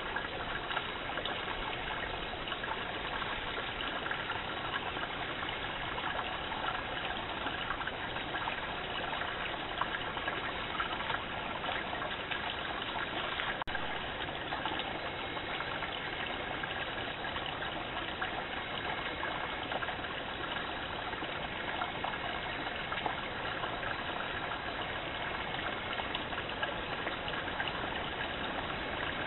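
Small stream running steadily, a constant watery rush heard through a trail camera's narrow-band microphone, with a single brief click about halfway through.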